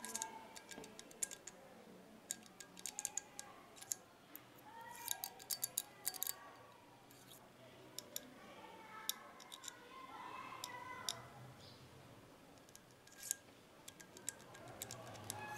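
Light metal clicks and taps in small clusters: the steel mandrel of a blind rivet being poked into and tried against the nosepieces of a Stanley heavy-duty hand riveter, checking which nose size fits. Soft background music runs underneath.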